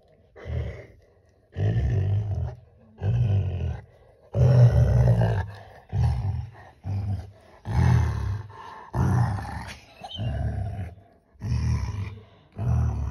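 Rottweiler growling in play over a blue toy: a deep growl about once a second, over and over.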